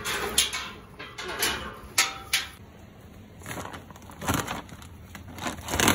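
Rustling and crinkling of a feed bag being handled and opened, in a string of short scraping bursts, the loudest near the end.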